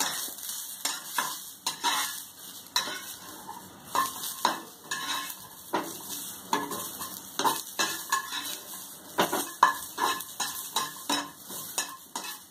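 Flat metal spatula scraping and tapping against a frying pan in irregular strokes as cauliflower stalk sticks are stirred, over a light sizzle from the little oil they are dry-roasting in.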